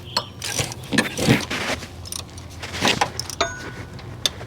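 Hand ratchet and socket snugging a bolt on the engine front: irregular metallic clicks, clinks and short scrapes of the tool.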